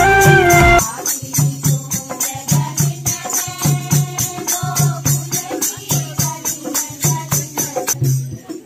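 Folk music with a wind-instrument melody breaks off about a second in. A dholak then beats a steady rhythm under jingling hand percussion, with voices singing faintly.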